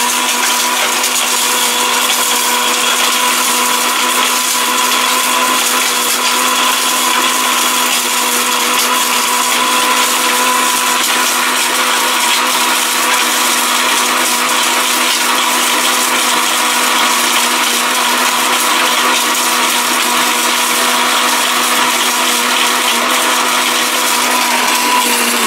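1600-watt electric blender running flat out, grinding hard dried turmeric into fine powder: a steady motor whine at one pitch over a dense hiss, starting to wind down at the very end.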